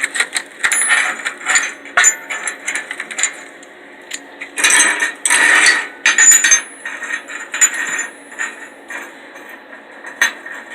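Loose metal hinge pieces clinking and rattling as they are handled and gathered, with two longer scraping rushes about halfway through.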